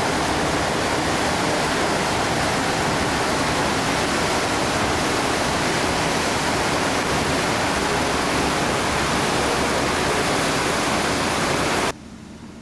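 Steady, loud rushing noise at the stern of the SS Badger, where the ship's wake churns white behind it; it cuts off abruptly near the end.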